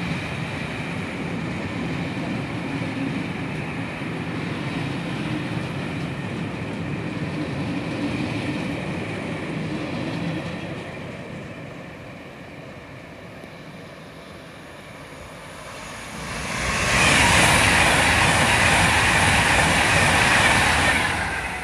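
Rake of maroon West Coast Railways passenger coaches rolling past on the rails, a steady rumble that dies down about eleven seconds in as the train draws away. About sixteen seconds in, a Virgin express train rushes by on the far track for about five seconds, much louder.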